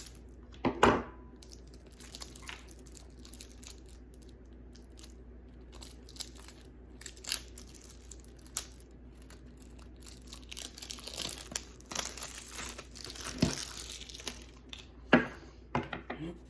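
Packaging being torn and crinkled while a new tarot deck is unwrapped, with scattered sharp snaps and knocks. The rustling is busiest in the last third.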